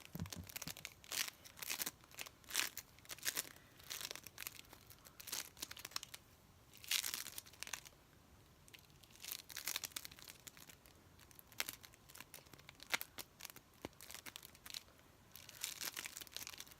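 Sticky bonding toy beads (Orb Molecules) being squeezed and pulled apart by hand, giving irregular sticky crackles and tearing sounds, with a longer run of crackling about seven seconds in.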